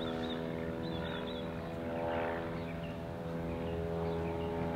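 Steady drone of an engine, one even pitch with its overtones, holding level throughout. A few short, high chirps sound over it in the first second and a half.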